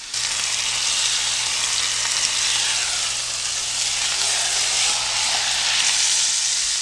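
Boneless chuck roast searing in hot oil in a skillet, sizzling loudly and steadily as it is turned over with tongs to show its browned side.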